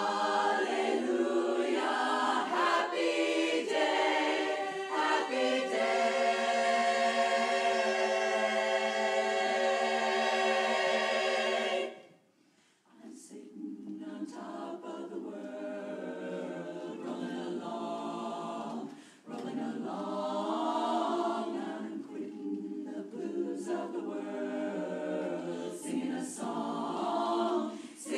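Women's barbershop chorus singing a cappella in close harmony. A long held chord cuts off sharply about twelve seconds in; after a short pause the singing resumes more softly.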